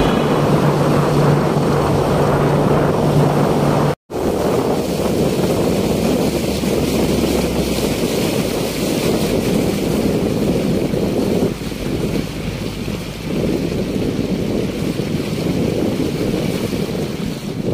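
Steady rush of wind on the microphone and water from a boat under way, with a brief dropout about four seconds in.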